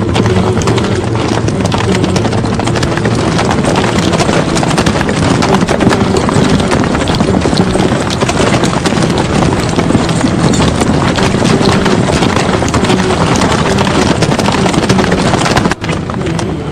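Massed horses galloping: a loud, dense, continuous clatter of hoofbeats, broken by a brief drop about a second before the end.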